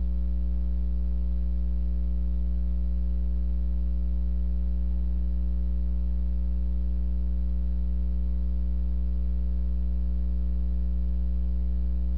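Steady low electrical mains hum with a stack of evenly spaced overtones. It is constant and unbroken, with no other sound over it.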